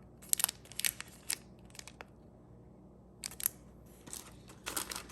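Plastic snack wrappers crinkling as they are handled: scattered sharp crackles, a lull of about a second in the middle, then denser crinkling near the end.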